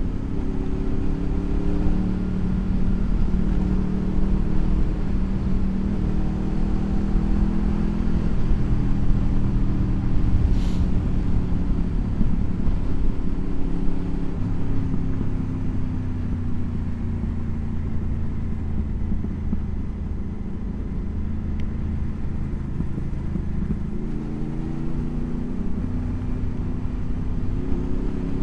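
Motorcycle engine running under way, its note rising and falling with throttle and gear changes, over a steady low rumble of wind noise.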